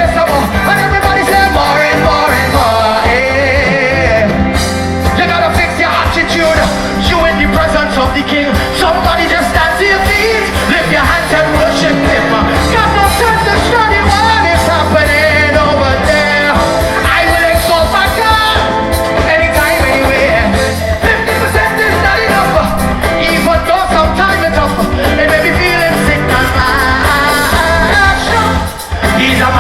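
Live gospel music: a band playing with a steady low beat and a singer's voice over it. The music dips briefly just before the end.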